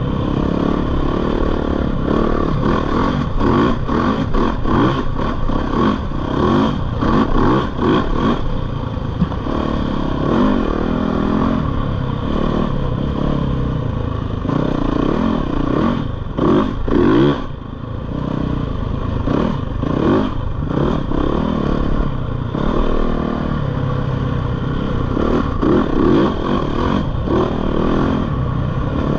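Yamaha dirt bike engine running under the rider, revving up and down continuously as the throttle is worked, with a brief lift off the throttle about two-thirds of the way through.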